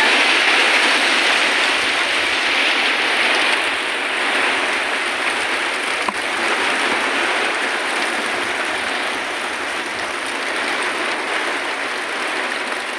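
Heavy rain pouring down in a steady hiss, with a single brief click about halfway through.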